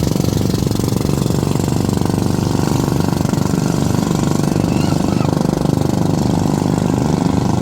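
A small engine running steadily with a fast, even pulsing.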